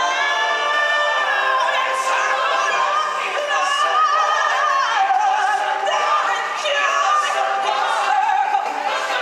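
Live stage singers and chorus singing through an amplified sound system, several voices sliding up to a high note at the start and holding it for about two seconds, then carrying on singing with the music.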